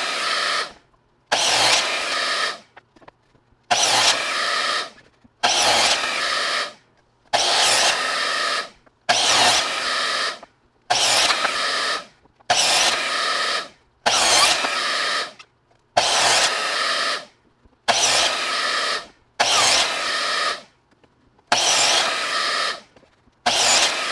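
Delta miter saw crosscutting wooden boards, about a dozen cuts one after another. Each one starts suddenly with a motor whine and the blade going through the wood, lasts about a second, and dies away as the blade winds down.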